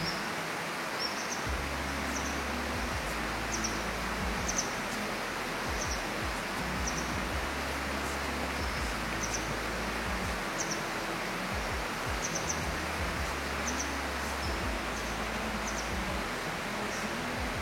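A small bird chirping in short high calls every second or so over a steady outdoor rush of noise, with low rumble that comes and goes.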